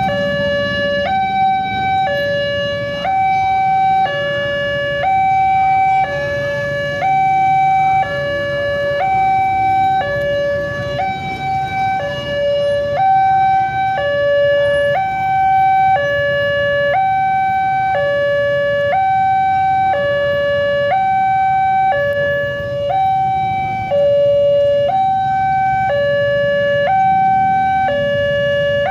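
Railway level-crossing warning alarm sounding its electronic two-tone chime, switching between a lower and a higher note about once a second, signalling that a train is approaching. A low rumble of waiting traffic runs underneath.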